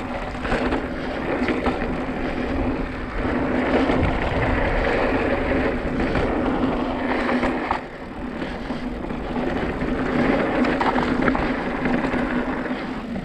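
Mountain bike riding over slickrock sandstone: continuous tyre rolling noise with small rattles and clicks from the bike, and a steady low hum under it. Near the end the bike moves onto a dirt trail.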